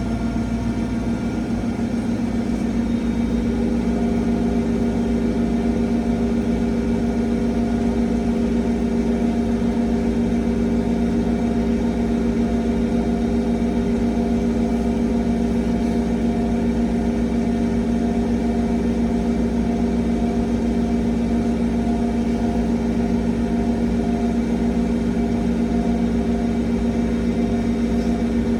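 Bauknecht washing machine spinning its drum at high speed in the spin cycle (set to 1400 rpm), a steady mechanical hum with a motor tone. It rises slightly and settles about three seconds in.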